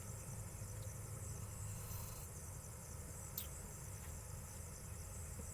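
Night insect chorus, mostly crickets, a faint steady high trilling with a low rumble beneath, and one brief faint sharp sound about three and a half seconds in.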